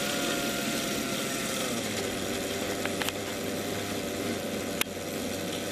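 Radio-controlled model helicopter's small glow-fuel engine and rotor running steadily as it hovers low; the engine note drops slightly about two seconds in. Three sharp clicks, two close together about three seconds in and one near five seconds.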